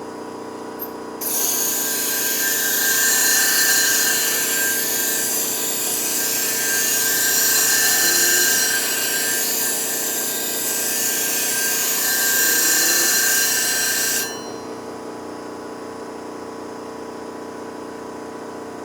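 Artero clipper blade held against the spinning hone plate of a Nebraska Blades sharpening machine, grinding with a loud hiss that starts about a second in and stops about fourteen seconds in. The machine's motor hums steadily underneath.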